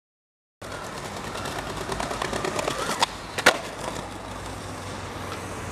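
Skateboard wheels rolling on concrete, starting about half a second in, with two sharp clacks of the board about half a second apart around the middle, the second the loudest, before the rolling carries on.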